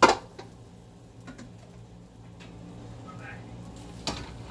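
Metal cookware clanking while drained potatoes are handled between the sink and the stove: a sharp clank right at the start, a few light ticks, and another clank about four seconds in, over a low steady hum.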